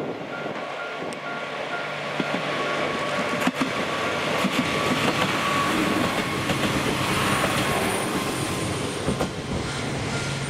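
Two-car JNR KiHa 47 diesel railcar train passing close by: diesel engines running and wheels clicking over the rail joints, growing louder as it goes by and easing off near the end.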